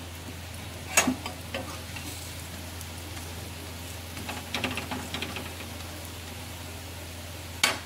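Steel spatula scraping and tapping on an iron tawa as a chilla fries, over steady faint sizzling. There is a short scrape about a second in, a cluster of small scrapes and clicks in the middle, and a sharper clack near the end.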